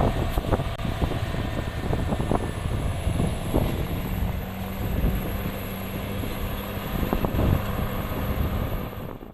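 Excavator's diesel engine running with scattered knocks and clanks, and a thin high whine from about two seconds in; the sound cuts off suddenly at the end.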